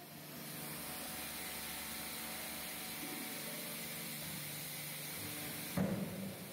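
Deep-draw press for LPG cylinder parts cycling: a steady hiss over a low machine hum for about five seconds, then one heavy clunk near the end.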